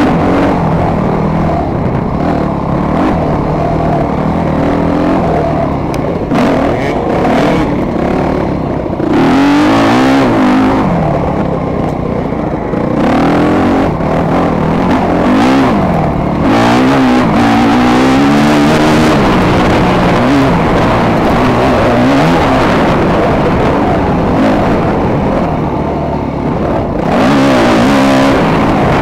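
2008 Yamaha YZ250F's 250cc four-stroke single-cylinder engine at race pace, revving up and dropping back over and over as the rider works the throttle and shifts.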